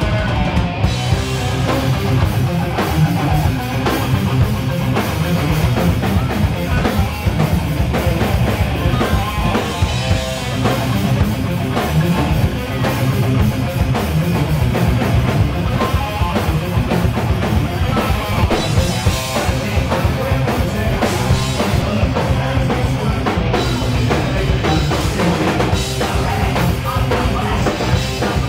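Heavy metal band playing live: distorted electric guitars over a drum kit, loud and unbroken.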